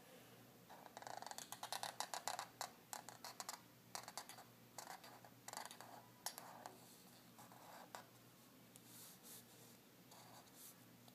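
Black felt-tip marker scratching across sketchpad paper in quick short strokes, dense for the first few seconds, then sparser and fainter.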